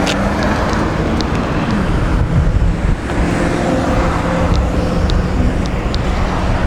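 Harley-Davidson Twin Cam 96 V-twin idling through a Vance & Hines exhaust, a steady low rumble whose pitch dips slightly about two seconds in and then holds.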